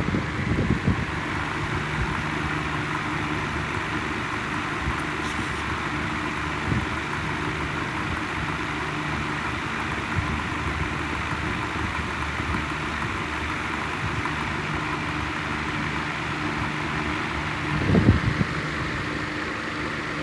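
Steady low mechanical hum over a soft hiss, with a bump about half a second in and another near the end.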